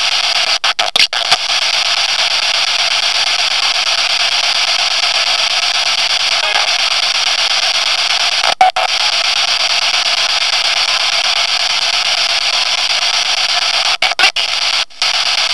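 Loud, steady static hiss, cut by a few brief sudden gaps about a second in, past halfway, and several times near the end. Captions read the words "I am her Mother" and "Her bleeding has to stop" out of this noise as spirit messages.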